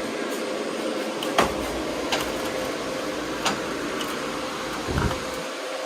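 Steady whir of cooling fans with a faint hum, broken by a few sharp clicks and knocks from handling a power cable and connectors. The loudest knock comes about a second and a half in.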